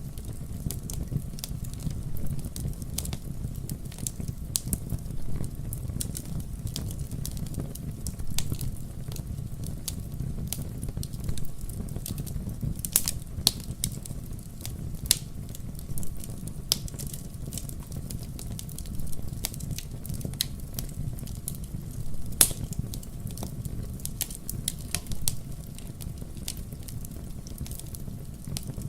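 Wood fire burning in a fireplace: a steady low rumble of flames with frequent sharp crackles and pops at irregular intervals, a few louder snaps among them.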